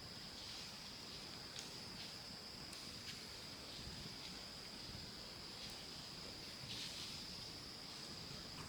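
Insects in a continuous high-pitched chorus, with a few faint clicks.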